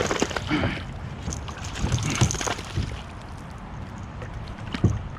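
Irregular knocks and brief rustles and splashes around a fishing kayak, over a low wind rumble on the microphone.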